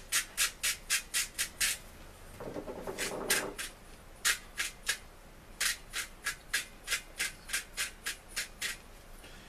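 Hand-twisted salt and pepper grinder being cranked: quick crisp clicks at about four a second, in several runs with short breaks between them.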